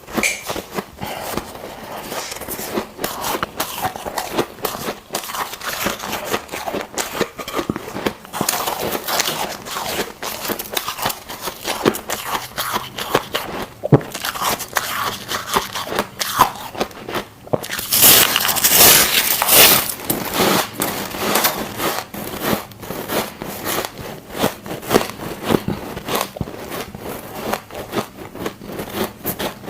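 Ice cubes being bitten and chewed close to the microphone: continuous irregular crunching and cracking, with a louder stretch of crunching about eighteen seconds in that lasts about two seconds.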